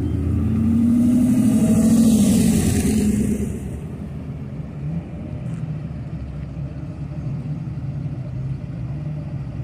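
Hot rod engine running as the car rolls past close by at low speed, loudest over the first three seconds and then fading. The low rumble of more classic cars idling and creeping in continues under it.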